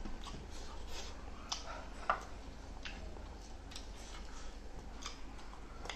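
Eating sounds: scattered soft clicks and smacks of chewing and of fingers working rice and chicken curry on plates, the loudest about two seconds in.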